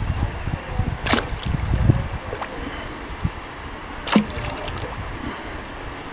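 Kayak paddle strokes on calm creek water: the blade dips in with a sharp splash twice, about three seconds apart, over a low rumble.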